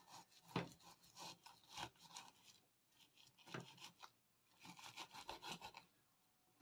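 Cleaver sawing back and forth through the skin of a raw salmon steak on a wooden cutting board, in runs of short rasping strokes, with two sharp knocks of the blade on the board, about half a second in and past the middle.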